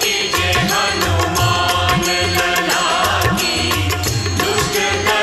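Instrumental interlude of a Hindi devotional aarti song, with a steady percussion beat under melody instruments and no singing.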